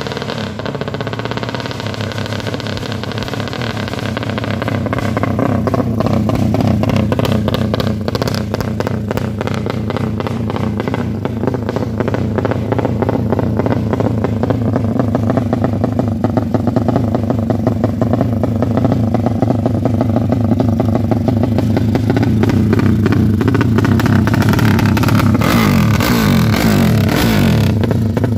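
Tuned Suzuki Satria FU race engine running through a racing exhaust, held at steady revs with a rapid clattering tick. Near the end the revs waver up and down.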